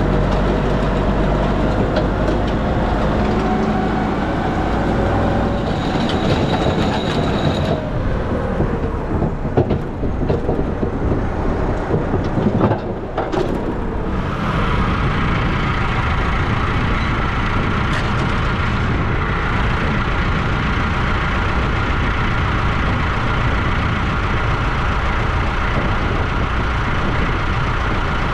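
Tractor diesel engine running steadily, with an abrupt change about thirteen seconds in to a steadier drone carrying a thin whine.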